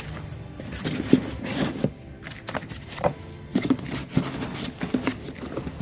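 Irregular knocks, clicks and scrapes of parts being handled and moved, with no steady rhythm.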